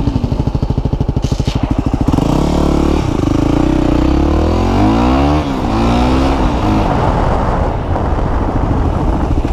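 Yamaha WR250R's single-cylinder four-stroke engine heard from the rider's seat: chugging at low revs for about two seconds, then revving up and dropping back twice as the bike accelerates and turns, settling into a rougher steady run near the end.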